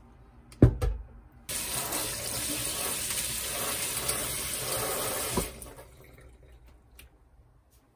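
A sharp thump as the plant pot is set down in a stainless steel sink, then a kitchen tap running for about four seconds, water pouring onto the pebble-topped soil of the pot, before it is shut off.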